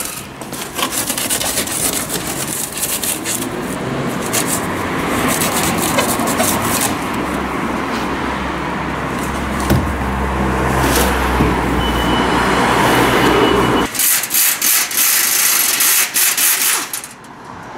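Cardboard packaging being torn and dragged off a steel motorcycle shipping crate: continuous rubbing, scraping and rustling, with a low steady hum underneath for several seconds. About fourteen seconds in it gives way to a run of short, sharp bursts from a pneumatic tool on an air hose.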